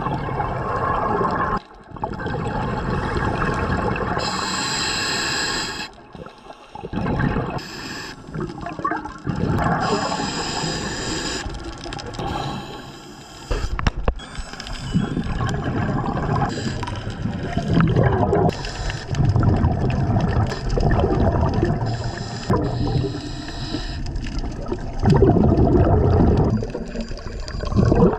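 Scuba regulators underwater: long gurgling rushes of exhaled bubbles, broken by short pauses between breaths.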